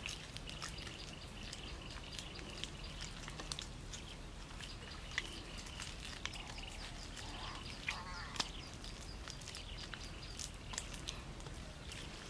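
Hands scraping and scooping loose dry soil and leaf litter, with scattered light clicks and crackles.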